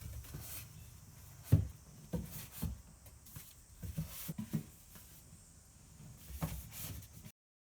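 A series of irregular knocks and thumps over a low background hum, the loudest about one and a half seconds in; the sound cuts off abruptly near the end.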